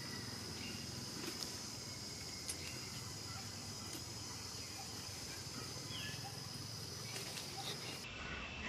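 Steady high-pitched insect chorus, crickets or cicadas droning, with a few faint short chirps and clicks over it; near the end the drone shifts lower in pitch.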